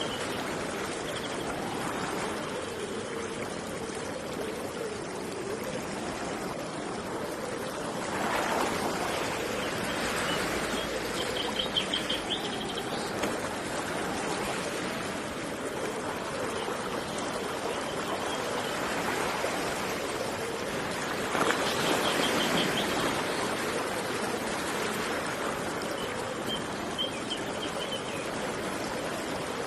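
River water flowing steadily, swelling louder twice. A small bird gives a short high trill of quick repeated notes several times.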